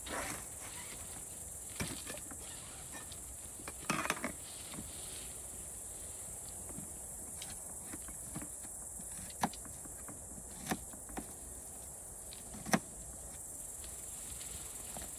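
Insects chirring steadily in the grass, a continuous high-pitched chorus. Over it come scattered sharp clicks and knocks as items are picked up and set down on a camp table: a cluster about four seconds in, and the loudest knock near the end.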